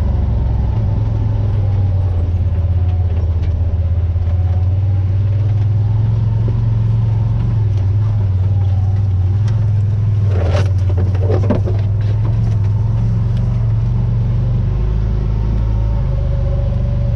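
Can-Am off-road vehicle's engine running steadily at a low, even pitch while it drives. A short, higher-pitched sound cuts through a little past halfway.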